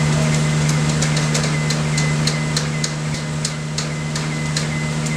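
A steady low mechanical hum, with a run of sharp, evenly spaced ticks, about three a second, that stops near the end.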